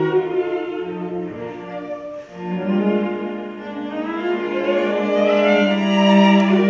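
String quartet playing classical music, with cello and violins bowing long held notes. The sound dips briefly about two seconds in, then swells again.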